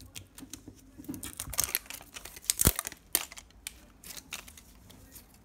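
Thin plastic film on a ZURU 5 Surprise Mini Brands capsule crinkling and tearing as fingers peel it off, a run of crackles with one sharp snap about two and a half seconds in.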